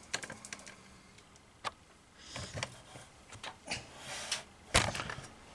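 Scattered light clicks and short rustles of a handheld camera being picked up and moved, with a sharper knock near the end.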